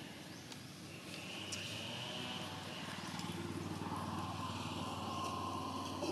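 Outdoor background: a steady low hum, with a high buzzing sound that swells and fades twice, about a second each time.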